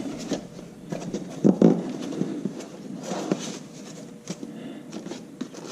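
A cardboard box and its packaging being opened and handled: scattered rustles, scrapes and light clicks, with a louder bump about one and a half seconds in.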